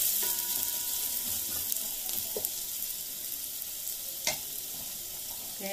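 Sliced onions and curry leaves sizzling steadily in ghee in a steel pan as they fry until soft. A single sharp click comes about four seconds in.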